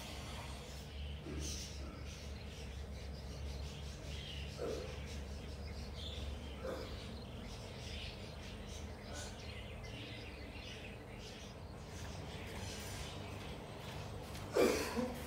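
Room ambience: a steady low hum that fades out about six seconds in, a few faint short chirps, and a sharp knock near the end.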